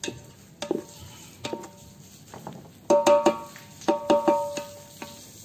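Wooden spatula stirring onions and tomatoes in a large aluminium pot, knocking against the pot's side and rim so the metal rings briefly with each hit. The knocks are scattered at first, then come in two quick runs of louder clanks about three and four seconds in.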